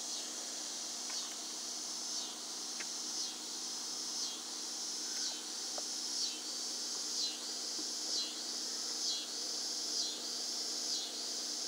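A steady high-pitched chorus of insects, pulsing about once a second, with a faint steady low hum beneath it.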